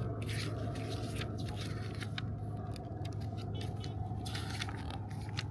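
Light rustling, scraping and small clicks of things being handled during an unboxing, over a steady low hum.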